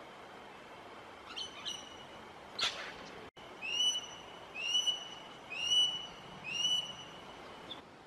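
A bird calling over a steady outdoor hiss: two short calls, a brief noisy burst, then four rising whistled calls about one a second.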